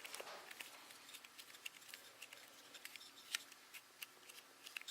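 Faint scattered clicks and scratchy rubbing of hands gripping and pressing textured rubbery grip tape onto a pistol's grip.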